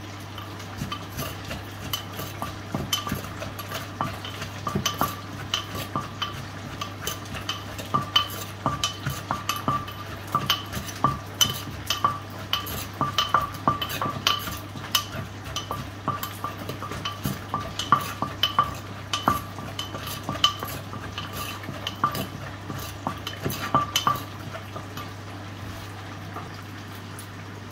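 Wooden pestle and metal spoon knocking, scraping and clinking in a terracotta mortar as shredded green papaya salad is bruised and tossed. The knocks and clinks come in an irregular stream and stop a few seconds before the end.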